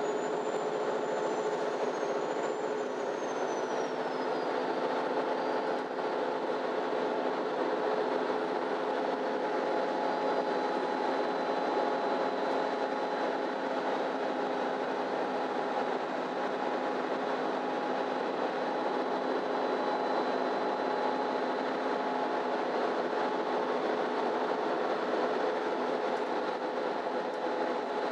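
MAN Lion's City Ü intercity bus heard from inside the passenger cabin, driving at a steady speed: an even drone from the engine and drivetrain over road and tyre noise. A faint high whine rises and falls over the first few seconds.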